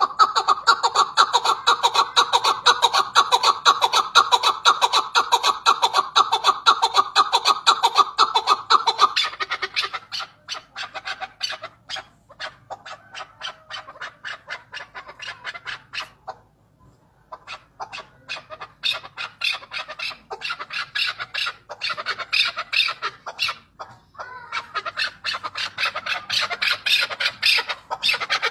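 Chukar partridge calling: a long run of rapid, repeated notes, loud for the first nine seconds or so, softer for several seconds, a short pause, then loud again.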